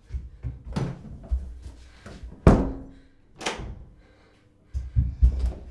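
Blows on a closed door: a string of irregular thuds and bangs, the loudest about two and a half seconds in, with a quicker run of bangs near the end.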